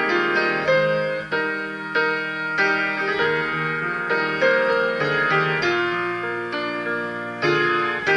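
Instrumental music played on a keyboard, piano-like notes and chords struck in a steady flowing pattern.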